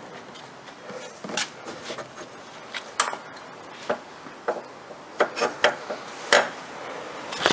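Irregular metallic clicks and knocks, a dozen or so, as a serpentine belt is worked around the alternator pulley with the belt tensioner held back by a wrench.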